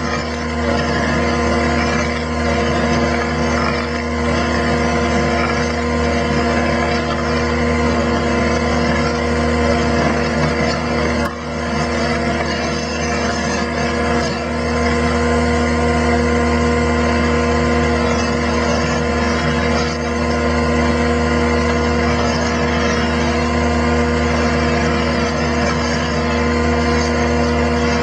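Skid steer's diesel engine running steadily under load, driving a hydraulic Fecon Stumpex auger stump grinder as it bores into a tree stump.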